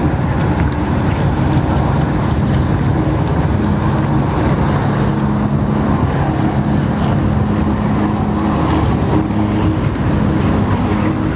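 Personal watercraft engine driving a flyboard, running steadily with its pitch shifting a little, under rushing water and wind noise on the microphone.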